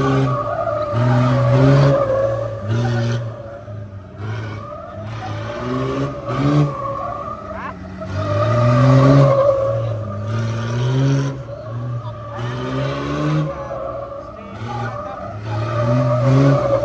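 A car drifting: tyres squealing in a long wavering screech that swells twice, while the engine revs up and down in short repeated bursts.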